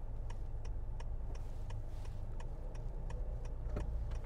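Car turn-signal indicator clicking steadily, about three clicks a second, over the low hum of road and engine noise inside the cabin.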